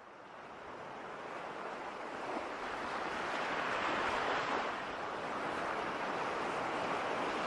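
A steady rushing noise that fades in from silence and swells over the first four seconds, then holds steady.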